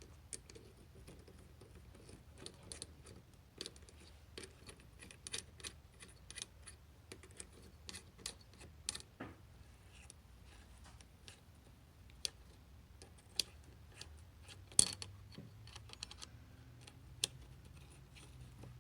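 Irregular light metallic clicks and taps from a small engine being worked on by hand while its cam timing is checked, with one sharper click about fifteen seconds in.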